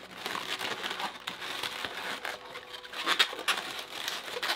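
Inflated latex twisting balloons (260s) rubbing and squeaking against each other and against hands as they are twisted and pushed into place, a continuous crinkly rustle that is loudest about three seconds in.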